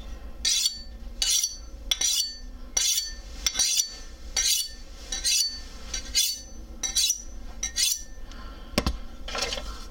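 A 420 steel knife blade honed on a butcher's steel: about ten scraping strokes with a metallic ring, a little under a second apart, then a sharp knock near the end. It is honing a dull factory edge.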